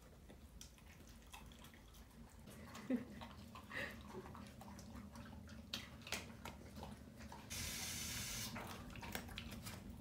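Dogs eating from their food bowls: faint chewing and many small clicks of teeth and food against the bowls. A burst of hiss lasting about a second comes near the end.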